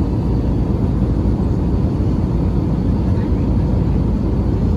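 Steady engine and airflow roar heard inside the passenger cabin of an Airbus A321-200, deep and even, with a faint steady whine above it.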